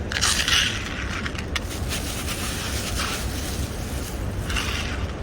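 Outdoor street background noise: a steady low rumble with swells of hiss about half a second in and again near the end, in the manner of passing traffic.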